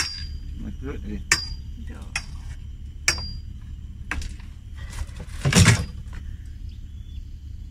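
A few sharp metallic clinks, three of them leaving a brief high ring, and a louder knock about five and a half seconds in.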